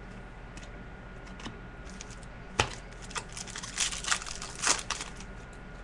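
Trading-card pack wrapper crinkling and tearing as cards are handled, with a sharp snap about two and a half seconds in followed by a quick run of rustles.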